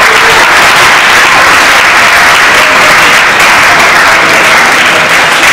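Large audience applauding, steady and loud.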